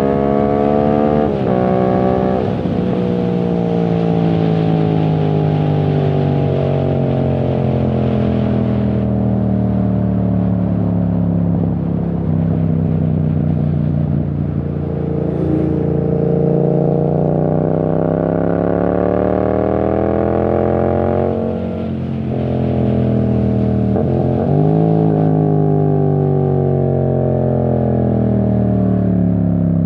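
Yamaha MT-07 2021 parallel-twin engine through a full titanium exhaust with no dB killer, riding along: two quick pitch drops near the start as gears change, a slow fall in pitch, then a long climb for several seconds. About twenty-one seconds in the note drops sharply, climbs again with a quick shift or two, then eases back.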